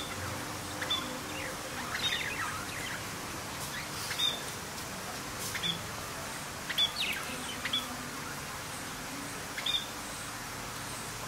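Budgerigars chirping: short, high, scattered chirps, a few in quick pairs, over a steady faint hiss.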